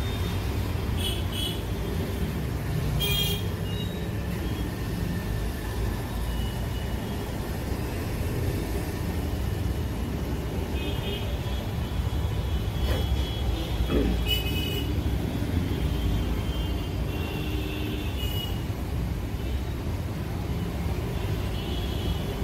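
Steady low rumble of road traffic with several short horn toots and a few light clicks.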